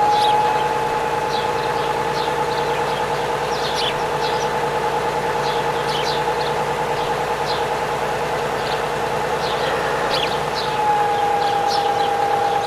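A toy vehicle's small electric motor whining steadily, its pitch dipping slightly at the start and rising again near the end. Birds chirp briefly and repeatedly throughout.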